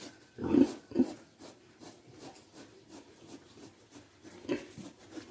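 A sow grunting low: two short grunts close together about half a second in, and a softer one near the end, with faint rustling between.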